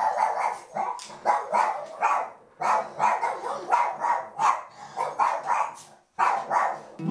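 A dog barking in a quick series, about three barks a second, with a short break near the end.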